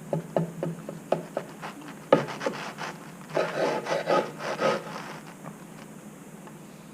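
Knife sawing through oven-baked cheesesteak loaves with crusty, browned bread: a string of short rasping strokes, busiest in the middle, then fading out near the end.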